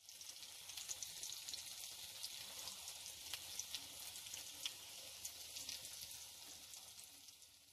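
Breaded chicken nuggets deep-frying in hot oil: a faint, steady sizzle with many small scattered crackles and pops.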